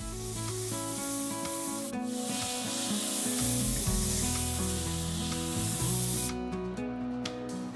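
Sandpaper rubbing against a wooden rolling pin spinning on a mini wood lathe, a steady hiss of hand sanding that breaks off briefly about two seconds in and stops about six seconds in.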